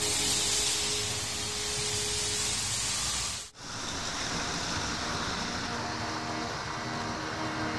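Märklin H0 model trains running on the layout's metal track: a steady rolling and motor noise. It drops out for a moment a little over a third of the way in, then carries on slightly quieter.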